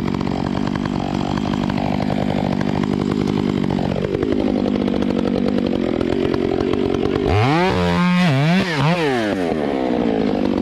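Two-stroke chainsaw running under load, its engine note sagging about four seconds in. Near the end the revs rise and fall several times before it settles back to steady running.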